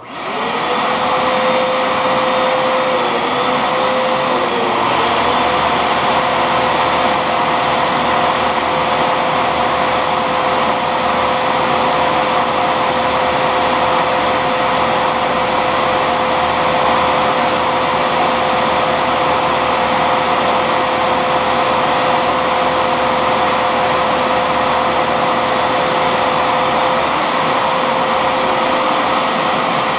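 Shopsmith combination machine switched on as a lathe: its motor spins up quickly and then runs with a steady whine, turning a graphite rod in the chuck while sandpaper is held against it. The pitch sags briefly twice a few seconds in.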